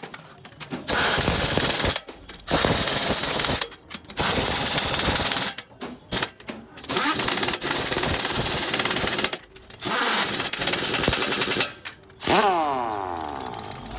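Pneumatic impact wrench hammering in about six loud bursts of one to two seconds, with short pauses between them, as it tightens a truck's wheel nuts. The last burst tails off slowly near the end.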